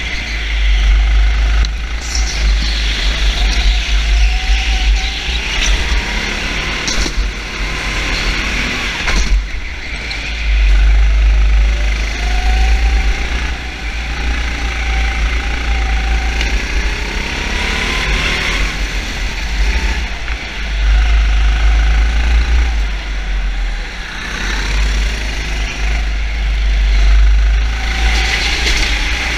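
Racing vehicle engine revving up and down again and again, its pitch rising and falling, over a heavy low rumble.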